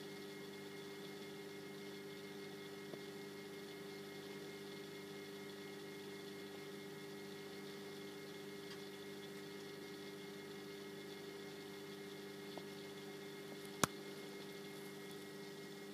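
Steady electrical hum made of several constant tones over a light hiss, with a single sharp click near the end.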